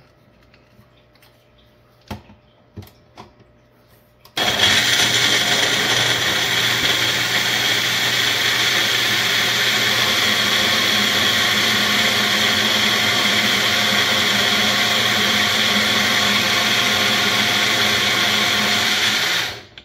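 Single-serve bullet-style blender running, its motor switching on about four seconds in and holding a steady pitch for about fifteen seconds as it blends frozen blueberries, oats and oat milk into a smoothie, then cutting off abruptly.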